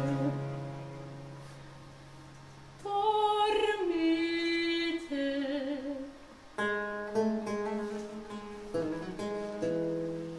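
Baroque chamber music: a soprano singing with theorbo and baroque cello accompaniment. A held note dies away over the first few seconds, then the plucked chords and voice start again about three seconds in and carry on to the end.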